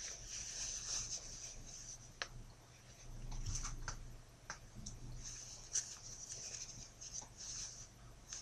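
Cloth rustling and rubbing as a ring sling's fabric is handled and pulled into place, with a few short sharp clicks.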